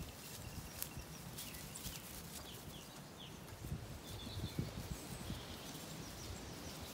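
Zwartbles sheep moving about and grazing close by, with wind rumbling on the microphone and a few bird chirps.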